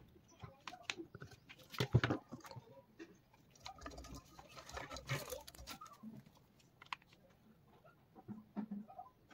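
Scattered clicks, taps and scraping from hands handling an LED street light's parts during repair, with a louder knock about two seconds in and a stretch of rustling scraping around four to five seconds.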